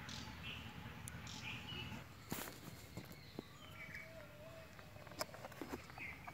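Faint background bird chirps over a low steady hum, with a few light clicks and taps from small parts being handled.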